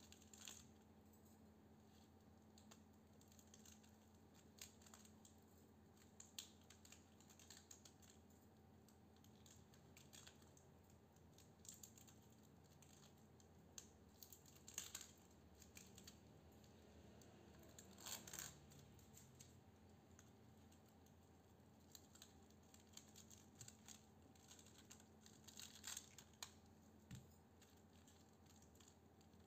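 Faint, scattered clicking and ticking of enamelled copper wire as it is unwound by hand from a toroidal transformer coil and dropped onto a steel plate, with one longer, louder rustle a little past halfway.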